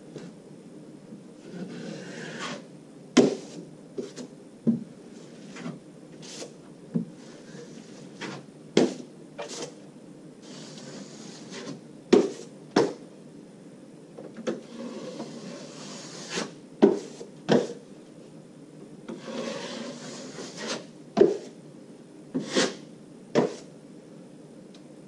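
Metal trowel scraping joint compound across plasterboard in long strokes, with repeated sharp clicks and knocks as the blade strikes and scrapes against the hawk, while the final topcoat is skimmed over the drywall joints.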